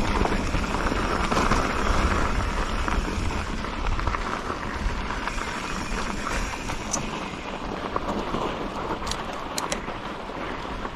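Mountain bike rolling along a dirt and rock trail: a steady noisy rush of tyre noise and wind on the microphone with a low rumble, a little louder in the first few seconds, and a few sharp clicks near the end.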